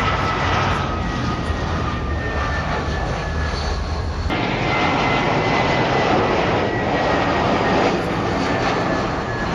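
Jet airliner engines: a steady rushing jet noise with a faint whine slowly falling in pitch. The sound changes abruptly about four seconds in, where a second aircraft is heard.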